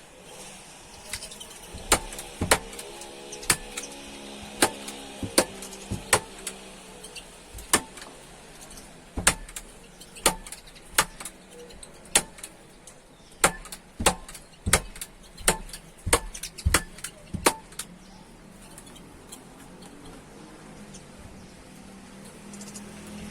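A series of sharp, irregular clicks or knocks, about two dozen in all, stopping a few seconds before the end.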